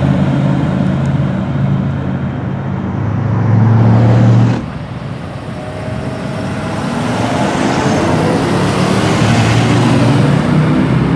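Performance car exhaust: one engine runs loud and deep, swells, then cuts off abruptly about four and a half seconds in. Another car's exhaust then builds steadily with rising pitch as it accelerates away.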